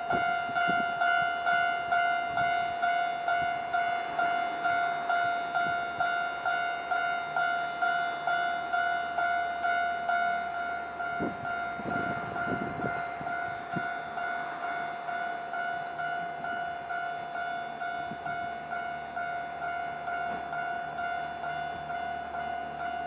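Level-crossing warning bell ringing in a steady repeating rhythm as a Nankai electric train passes over the crossing, its wheels clattering over the rail joints about halfway through.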